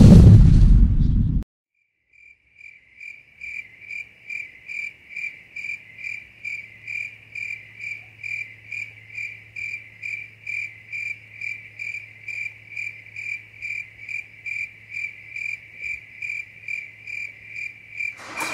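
Hip hop music cuts off abruptly about a second and a half in. After a short silence a cricket chirps steadily, about two chirps a second, over a faint low hum.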